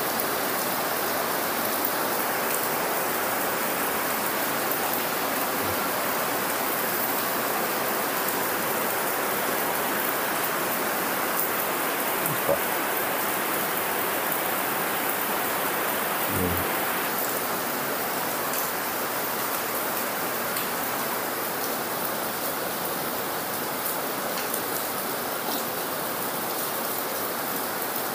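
Heavy rain falling steadily, a continuous even hiss of downpour that is noisy enough to fill the room.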